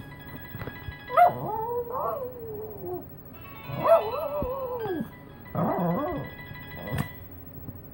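A dog howling along to a phone ringtone: three drawn-out howls that rise and fall in pitch over the ringtone's steady electronic melody. A sharp click near the end.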